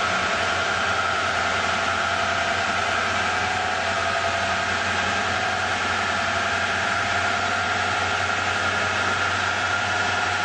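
Nissan 350Z's V6 engine and drivetrain running steadily at low revs through a Torvec infinitely variable transmission, a constant drone with hiss over it and no rise or fall in pitch.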